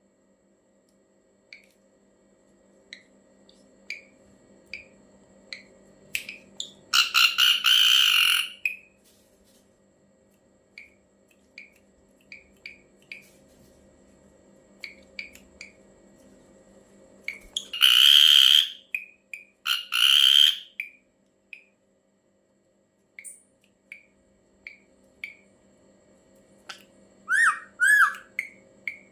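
Ashy drongo calling: scattered short, high chips broken by three loud, harsh rasping calls of about a second each, and near the end a pair of quick rising whistled notes. A faint steady hum runs underneath.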